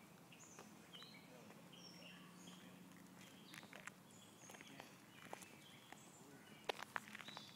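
Faint outdoor ambience: small birds chirping briefly here and there, with a few footsteps on the gravel path near the end.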